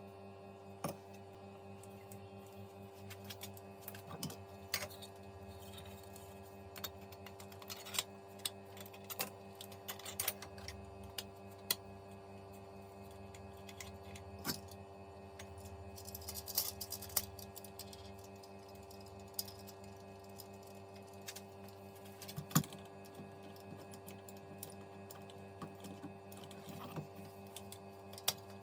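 3D printer running, with a steady motor hum under irregular clicks and ticks from the moving print head.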